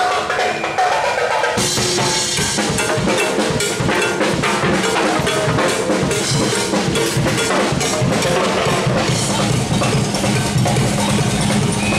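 A group of drummers playing a fast, driving rhythm on drums. The drumming comes in about one and a half seconds in, after a brief melody.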